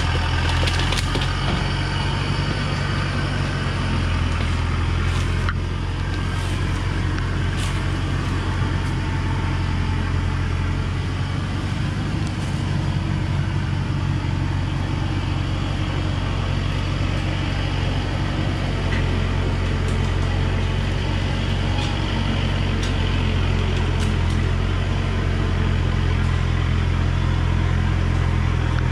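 Diesel engine of a truck loaded with acacia logs running steadily at low speed on a dirt forest track, a continuous low drone, with a few sharp cracks scattered through it.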